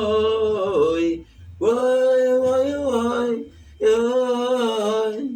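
A man singing three long held notes, each lasting about a second and a half, with short breaks between them. A low bass line runs under the first two notes.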